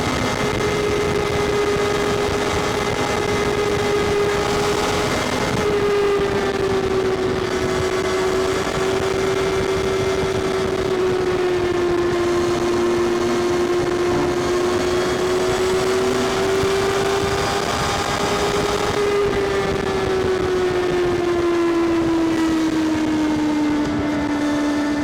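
Kawasaki Ninja ZX-6R inline-four sport bike engine and exhaust, heard from the bike while cruising at a steady speed. The note holds nearly level, then slowly drops in pitch over the last few seconds as the bike slows.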